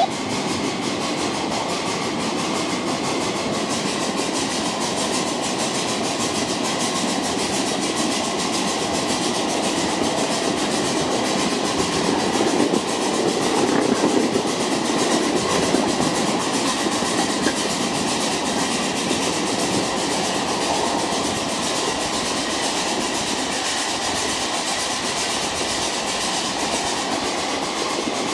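Ride-on scale live steam train rolling through the woods behind its steam locomotive: a steady rattle and clatter of small steel wheels on the rails, with many fine clicks. The clatter grows a little louder about halfway through.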